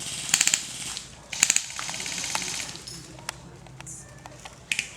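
Airsoft guns firing two short full-auto bursts of rapid clicks in the first second and a half, followed by a few scattered single shots.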